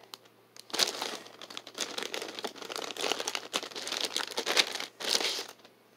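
Clear plastic zip-top bag crinkling and rustling as it is handled, in uneven crackles with a last short burst near the end.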